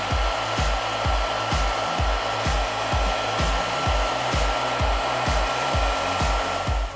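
Heat gun blowing steadily, a rushing of air with a thin steady fan whine, that cuts off at the very end. Electronic background music with a steady beat plays underneath.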